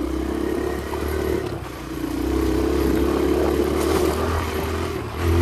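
Kawasaki KLX 140 dirt bike's single-cylinder four-stroke engine running on the move. The note dips briefly about two seconds in as the throttle eases, then picks back up and grows louder near the end.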